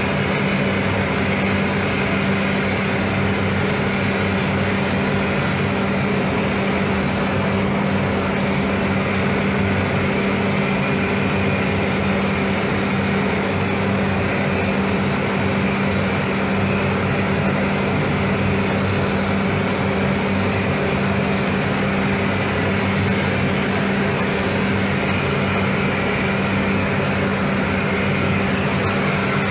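Paint spray booth's ventilation fans running: a steady low hum under an even rush of air, unchanged throughout.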